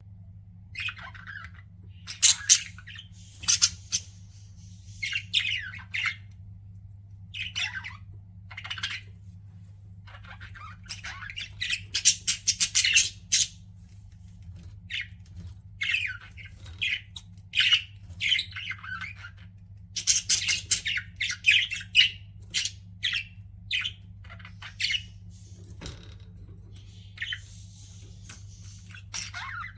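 Pet budgerigars chirping and squawking in irregular bursts, with quick chattering runs of short notes between brief pauses. A steady low hum sits underneath.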